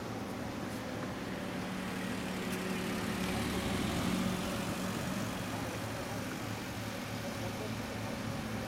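Steady low hum of an idling vehicle engine, with a broad rushing noise that swells to a peak about four seconds in and then fades.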